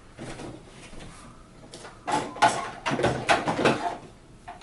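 Plastic parts of a toy walker being handled: rustling and knocking, with a run of louder clatter and scraping about halfway through.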